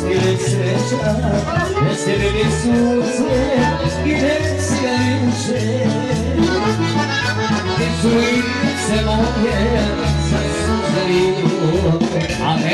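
Loud folk dance music with a steady beat and a singer over it.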